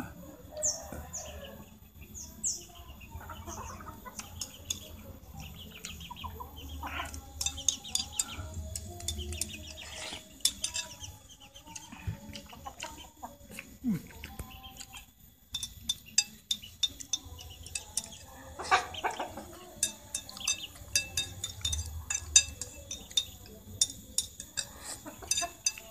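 Domestic chickens clucking, with many short clicks from chopsticks on a plate and eating sounds, thickest in the second half.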